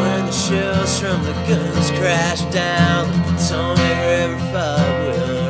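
Psychedelic rock music: a lead line bends and slides in pitch over held low notes.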